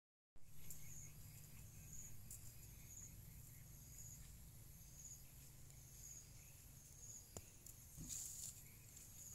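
Faint field ambience: an insect chirping at an even pace, about once a second, over a steady high insect drone and a low rumble, with a sharp click about seven seconds in.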